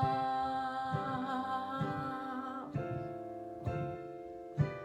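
Worship-song accompaniment between verse and chorus: a long sustained note over chords struck roughly once a second, with a chord change a little past halfway.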